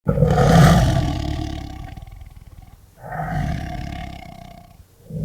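A large animal's roar, twice: a long one that starts suddenly and fades over about two and a half seconds, then a shorter one about three seconds in.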